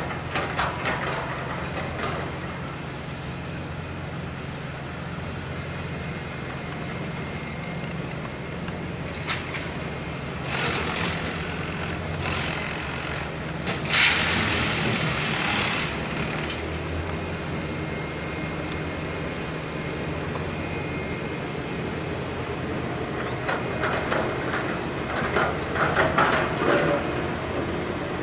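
A heavy engine running steadily with a low hum. Loud bursts of hiss come midway, and there is some clattering near the end.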